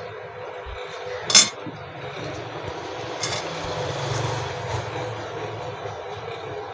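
Small objects handled on a workbench: one sharp clink about a second and a half in, as of a small container set down on the bench top, and a fainter clink a couple of seconds later, over a steady background hiss.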